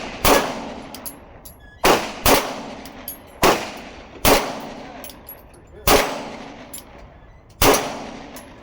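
Glock 19X 9mm pistol fired seven times in an uneven string, the shots about half a second to a second and a half apart, each trailing off in a short echo.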